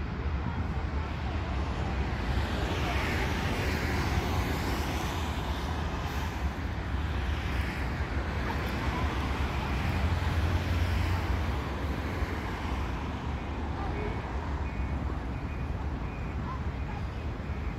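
Jet noise of a Boeing 737-800 passing low overhead on its landing approach: a broad rumbling roar with slowly sweeping tones that swells to its loudest about ten seconds in, then eases off. Road traffic runs along underneath.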